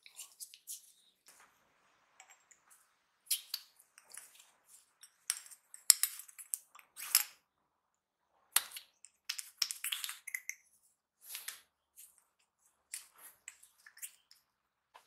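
Small metal parts of a blowtorch valve handled and fitted together by hand: a needle-valve spindle going into its brass valve body, giving scattered light clicks and scrapes at irregular intervals.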